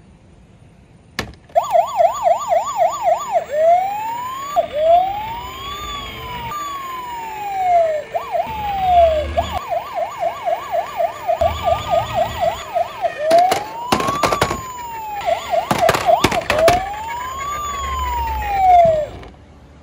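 Electronic siren sounds, a fast yelp and slower rising-and-falling wails overlapping. They start about a second and a half in and stop suddenly just before the end, with a few sharp clicks partway through.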